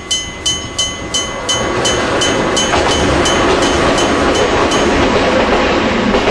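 Electric bell of a Hokuriku Railroad level crossing ringing about three strikes a second, while a train passes over the crossing. The train's running noise builds from about two seconds in and drowns the bell, which fades out near the end.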